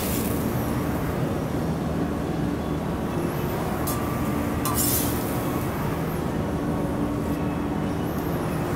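Steady hum and rush of commercial kitchen equipment and ventilation running, with a couple of short metal scrapes or clinks from a spatula and plates about three and five seconds in.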